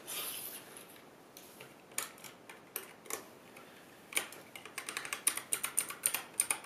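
Clicky mechanical keyboard switches on a macropad being pressed by hand: a few separate clicks, then from about four seconds in a fast run of sharp clicks as several keys are tapped in quick succession.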